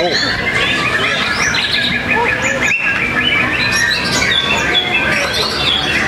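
Many white-rumped shamas (murai batu) singing at once, a dense overlap of rapid whistled phrases and chirps.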